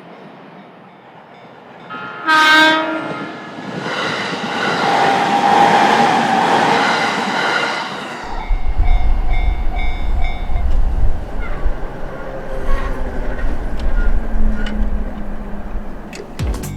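A train gives one short horn blast about two seconds in, then approaches with a swelling rush of noise and passes close by. From about eight seconds in there is a heavy rumble and a repeated clatter of wheels over the rail joints.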